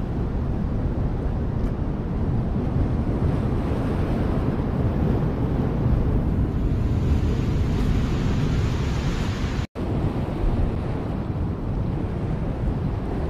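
Wind buffeting the microphone over ocean surf washing against a rock ledge, the surf hiss swelling in the middle. The sound drops out for an instant about ten seconds in.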